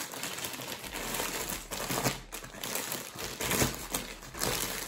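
Plastic mailing bag crinkling and rustling in irregular bursts as it is pulled open by hand and the plastic-wrapped hoodie inside is drawn out.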